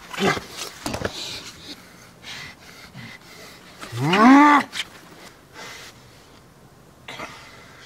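One loud, drawn-out low cry about four seconds in, its pitch rising and then falling, with a few short scuffling noises in the first second or so.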